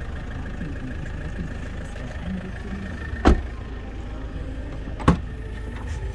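Toyota Corolla's rear side door shut with a sharp thud, then a little under two seconds later a second sharp clack as the tailgate is unlatched and lifted, over a steady low rumble.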